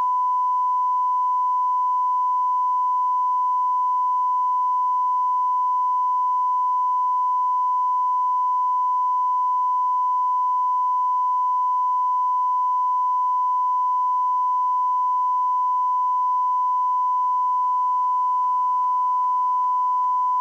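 Continuous television test tone sounding at one steady pitch and level alongside a colour-bar test card, the signal a channel sends while it is off the air.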